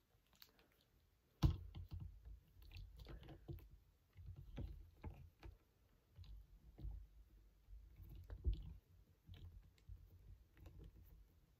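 Faint clicking and tapping of a plastic action figure being handled and posed, its joints clicking and its feet knocking on a glass tabletop, with a few sharper knocks, the loudest about a second and a half in.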